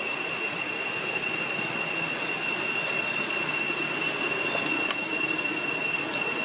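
Steady, high-pitched drone of cicadas, with a single short click about five seconds in.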